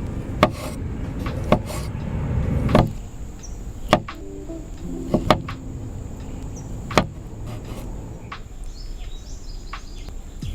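Kitchen preparation sounds: a handful of sharp, irregular knocks and clicks of utensils or cookware, two of them in quick succession around the middle, over a low rumbling noise that builds and fades in the first few seconds.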